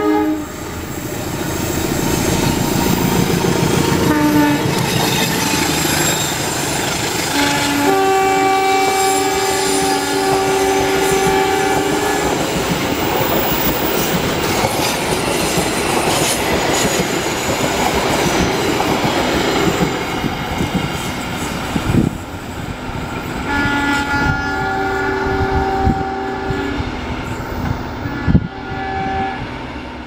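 Indonesian Railways diesel locomotive's multi-tone air horn sounding Semboyan 35, the horn signal, as a chord. A short blast about four seconds in and a long blast of about four seconds are followed by the loud rumble and wheel clatter of the train passing close by. Several shorter horn blasts come near the end.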